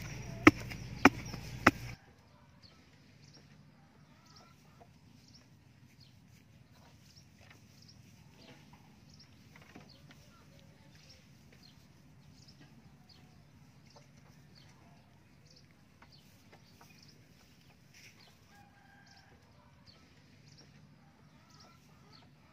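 A wooden stake rammed into a hole in the ground with four sharp knocks about half a second apart. After that comes a much quieter stretch: faint outdoor background with scattered small bird chirps.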